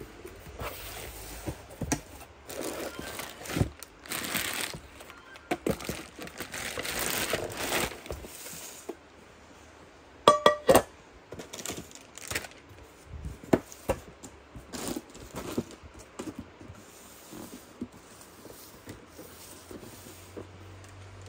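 Unboxing a stainless steel pressure cooker: cardboard carton flaps and plastic wrapping rustling, crinkling and tearing through the first half. About ten seconds in, the steel cooker gives a ringing clink, and scattered light knocks and rustles follow.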